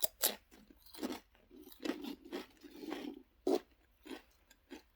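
Close-up crunching and chewing of Lay's Stax Xtra Flamin' Hot potato crisps: a run of irregular crisp crunches that thins out over the last second or so.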